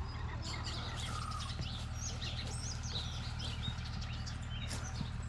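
Small birds chirping and twittering all through, many short high chirps over a steady low hum.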